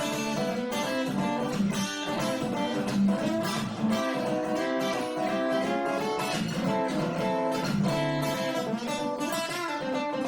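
Guitar playing an instrumental break in a Texas swing style song: a busy run of quickly picked notes over chords, with no singing.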